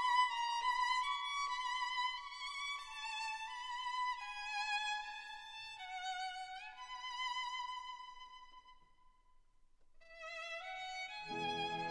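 Background music: a solo violin melody with vibrato, stepping downward and fading out about nine seconds in, then starting again a second later, with lower instruments joining near the end.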